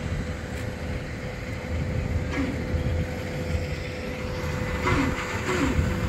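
Flatbed tow truck's engine running, a steady low rumble with a thin steady whine over it.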